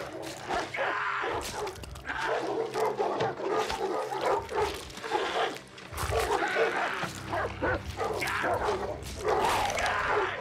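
A pack of hounds snarling and growling as they tear at a man. A low steady hum runs underneath.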